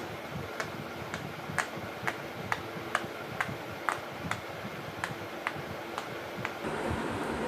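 A hand-worked fidget toy clicking over and over, about two short sharp clicks a second at an uneven pace, stopping near the end.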